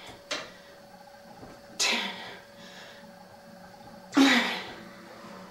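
A person's forceful, grunting exhalations, one with each rep of a seated overhead barbell press, twice strongly about two and a half seconds apart, each a short voiced huff trailing into breath.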